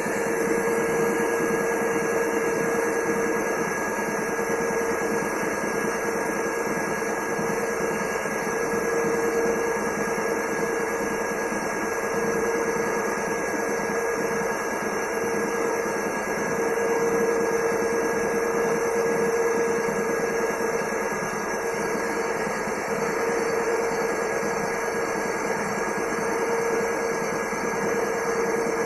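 IFB Elina washing machine running with a steady mechanical noise from its motor, with a tone that swells and fades every few seconds: the sign of a failing motor bearing.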